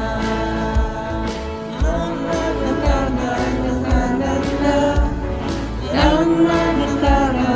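Students singing a Hindi song over a backing track with a steady beat; a voice carrying the melody comes in about two seconds in.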